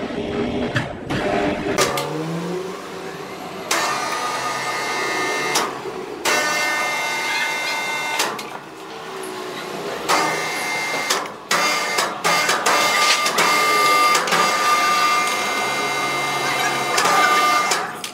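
An electric motor whining in several stretches, stopping and restarting a few times, with steady high tones over a rushing mechanical noise.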